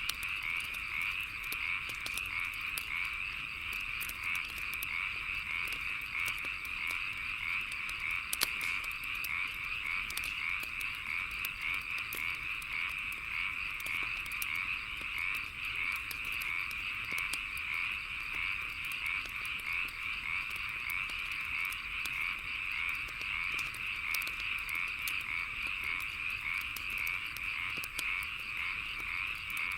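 A dense, continuous chorus of frogs calling, with the sharp pops of a crackling wood fire scattered through it; one pop about eight seconds in stands out louder.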